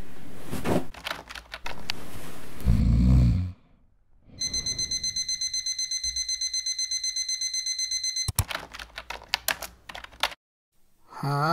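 Digital alarm clock beeping, a rapid pulsing electronic tone for about four seconds that cuts off suddenly. It is followed by a burst of fast computer-keyboard typing. Earlier there is a short loud low sound about three seconds in, and a brief rising sweep comes near the end.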